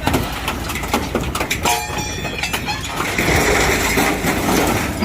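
Excavator running while its hydraulic cutting shear crushes and cuts through a truck cab's sheet metal, with a dense crackle of snapping metal. A high scraping squeal of metal comes in about three seconds in.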